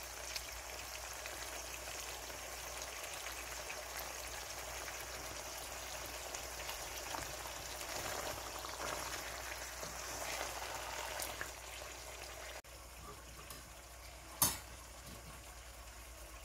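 Chicken pieces sizzling in hot oil in a pan, stirred with a wooden spatula, as a steady hiss. About twelve seconds in it cuts to a quieter hiss from a pot of pasta shells in boiling water, with one sharp knock shortly after.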